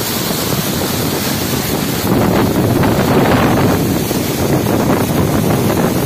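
Chitrakot waterfall's water plunging close by: a loud, steady rush of falling water and spray, with wind buffeting the microphone.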